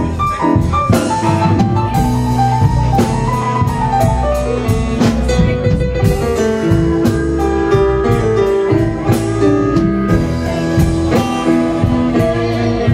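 Live blues band playing an instrumental stretch without singing: keyboard over a drum kit, with regular drum hits under sustained notes.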